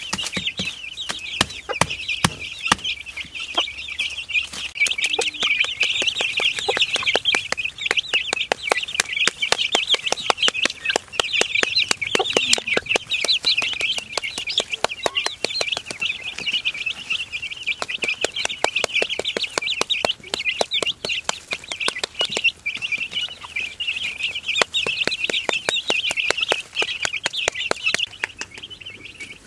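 A flock of young chicks peeping continuously, with many short sharp taps of beaks pecking at loose soil close by.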